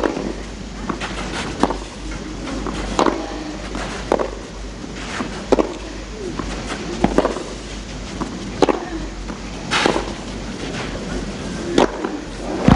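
Tennis ball struck back and forth with rackets in a baseline rally on a clay court: sharp single hits roughly every one to two seconds.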